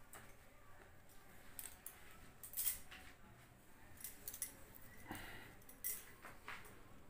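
Faint, scattered crinkling crackles from a hot polythene bag of microwave-boiled potatoes as the plastic shrinks, one sharp crackle every second or so.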